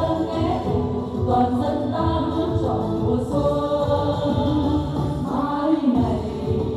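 Group of women singing together into microphones, amplified, over an instrumental accompaniment with a steady beat; the bass drops out for a moment shortly before the end.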